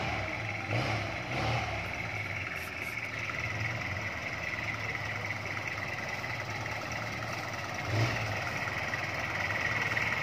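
Willys jeep engine running at low revs as the jeep crawls over a muddy track, swelling briefly about a second in and again near eight seconds. A steady high drone sits behind it.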